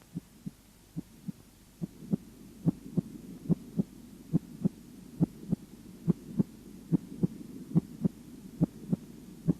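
A human heart heard through a stethoscope: a steady lub-dub of paired first and second heart sounds at about 70 beats a minute. The beats are faint at first and grow clearer about two seconds in.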